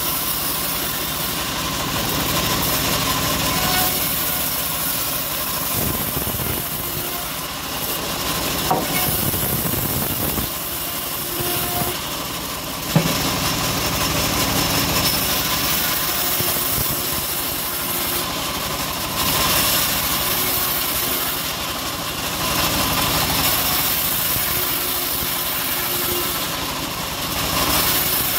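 Homemade band sawmill running steadily, its blade sawing lengthwise through old teak log tops as the wood is fed through. A single sharp knock about 13 seconds in.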